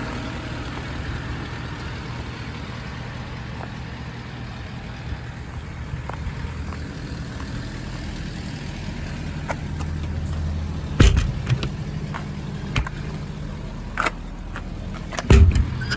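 Ford F550's 6.7 Power Stroke V8 diesel idling steadily, with several sharp knocks in the last third, the loudest about eleven and fifteen seconds in.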